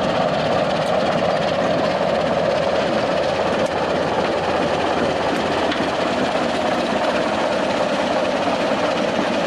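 Baldwin diesel switcher locomotive running steadily as it rolls slowly past close by, its engine drone and the rumble of the moving locomotive blended into one even sound.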